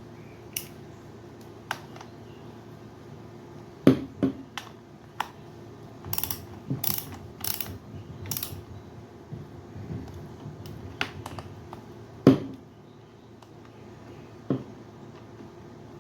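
Ratchet wrench clicking in short runs as it works the bar nuts on a chainsaw, with two sharper knocks of metal being handled, about four and twelve seconds in.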